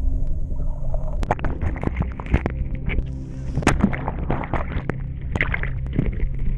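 Waterproof action camera thrashed about in shallow seawater: chaotic splashing with many sharp knocks, starting about a second in, over a muffled low churning of water.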